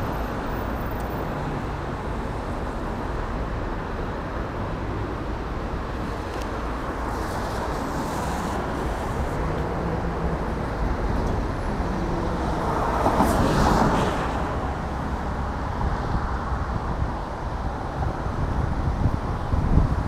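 Street traffic: a steady rumble of passing cars, with one vehicle passing closer and louder about two-thirds of the way through.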